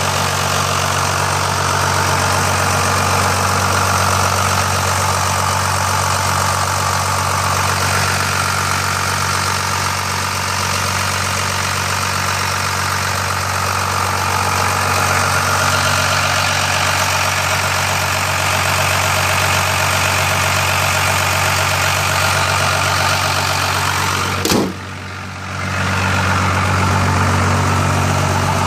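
1991 Dodge W250's 5.9-litre Cummins inline-six turbo diesel idling steadily. Near the end a single sharp click is followed by a dip in the sound lasting about a second.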